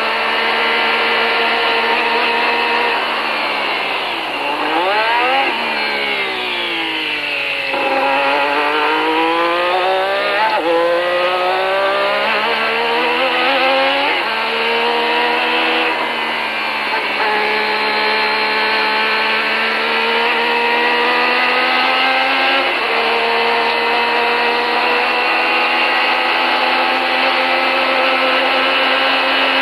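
Formula One car's engine heard from the onboard camera, running at high revs. A few seconds in, the pitch falls in a series of sweeps as the car brakes and downshifts. It then climbs again through the gears, with short dips at each upshift, and runs steadily at high revs near the end.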